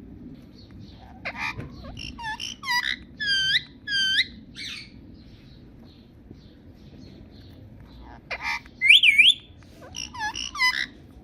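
Indian ringneck parakeet giving short, shrill whistled calls in two runs, one starting about a second in and another near the end, the loudest a wavering double whistle. A steady low hum runs underneath.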